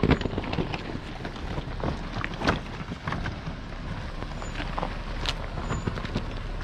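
A vehicle moving slowly, with a steady low rumble and irregular crackles and pops; sharp pops come near the start and about two and a half seconds in.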